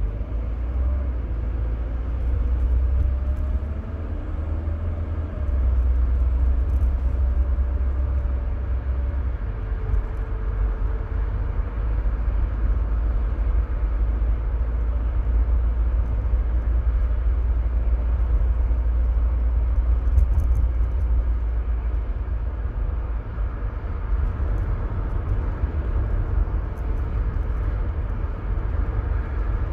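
A 1993 Mercedes-Benz W124 220CE coupe being driven, its 2.2-litre four-cylinder engine running under a steady low road rumble. The engine note slides up and down in pitch during the first several seconds.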